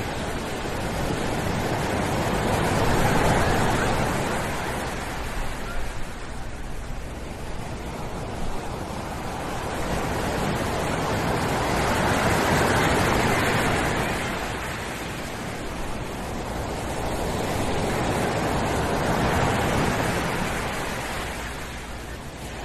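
Sea surf washing onto a beach: a continuous rush of breaking waves that swells and recedes in three slow surges, each several seconds long.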